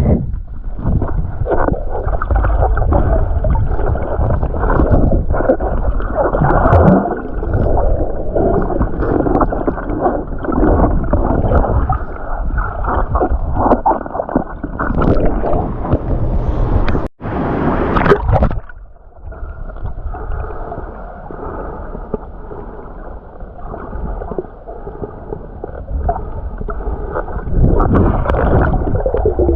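Muffled churning and gurgling of turbulent waterfall water, heard from underwater. It breaks off briefly just past the halfway point, runs quieter after that, and swells again near the end.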